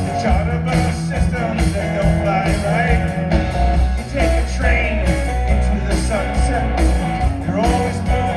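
Live rock band playing a song, with electric guitar, bass and drums and a lead vocal line over them.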